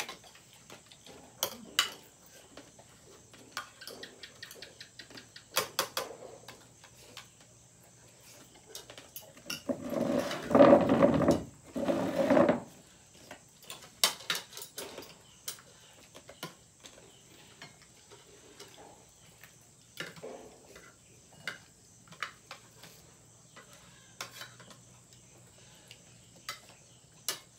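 Forks and spoons clinking and scraping on plates and bowls at a meal table: scattered light clicks. About ten seconds in there is a louder sound lasting a couple of seconds.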